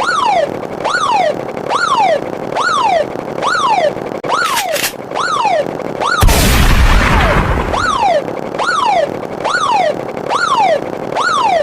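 Edited sound effects: a short falling-pitch 'pew' repeats about three times every two seconds. A loud explosion-like boom with a deep rumble comes about six seconds in.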